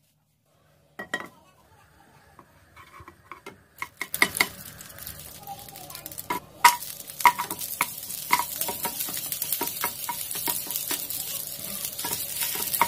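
Food frying in hot oil in a Tefal non-stick frying pan, stirred with a wooden spatula that knocks and scrapes the pan. A single knock comes about a second in; the sizzle starts about four seconds in and stays steady under repeated clicks and knocks.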